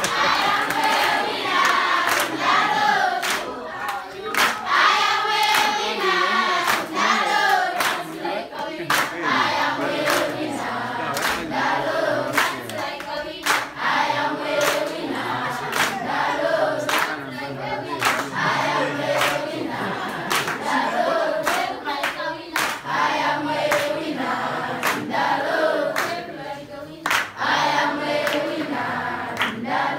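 A class of schoolchildren singing together in chorus, clapping their hands in time with the song.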